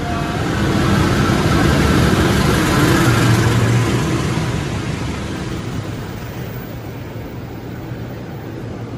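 A diesel-electric locomotive at the head of the Argo Cheribon passenger train passes close along the platform, its engine and wheels on the rails growing loud to a peak about three seconds in. The coaches then keep rolling past as the sound eases off.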